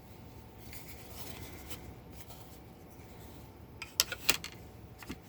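A plastic remote control caddy handled and pressed onto a wall by its adhesive pads: faint rubbing, then a few sharp plastic clicks about four seconds in and one more near the end.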